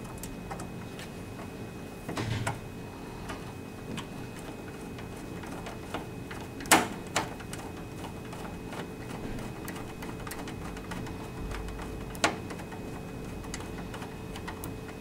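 Small clicks and taps of a screwdriver, screws and wires being handled against a printer's plastic case and metal power-supply chassis, with a louder click about seven seconds in and another about twelve seconds in. A steady faint hum lies under it.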